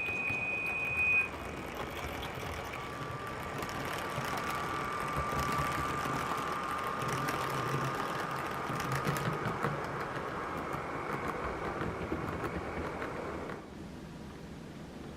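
HO-scale model train of an ex-Seibu E34 electric locomotive running, with dubbed-in sound effects. A high horn note ends about a second in, then a steady whine over rumbling and clicking runs until it drops away about 13 seconds in.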